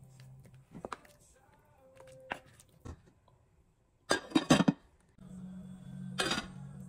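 A wooden spoon stirring thick stew in a ceramic slow-cooker crock, with a few soft taps and scrapes. About four seconds in, the glass lid is set on the crock with a short clatter.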